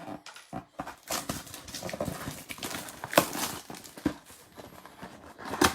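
Trading cards and their packaging being handled: a run of short clicks and rustles, with two louder sharp clicks about three seconds in and near the end.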